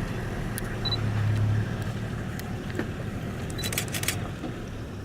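A vehicle engine idling with a steady low hum, and a quick run of sharp clicks about three and a half to four seconds in.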